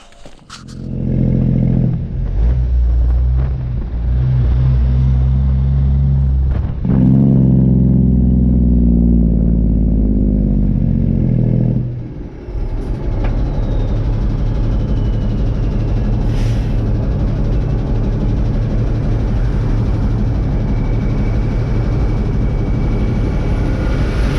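Peterbilt dump truck's diesel engine pulling away and accelerating through the gears, the engine note dipping briefly at each shift, then running steadily at road speed.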